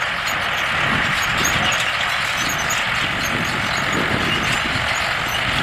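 Farm tractors and a hay baler running steadily in the field, a continuous mechanical drone.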